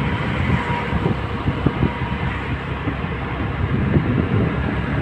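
Steady road and wind noise of a moving vehicle, with irregular low buffeting of wind on the microphone.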